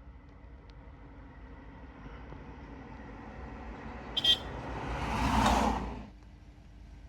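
A vehicle running with a steady low hum that grows louder, a short sharp click about four seconds in, and a swell of rushing noise that peaks and falls away about six seconds in.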